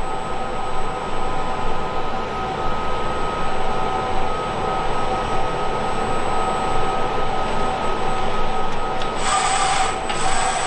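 Steady machine hum with a few steady whining tones from a Lincoln Electric Cooper welding cobot, its FANUC CRX arm moving through a cold run with no arc struck. About nine seconds in, a louder rushing noise comes in, breaks briefly, and comes back.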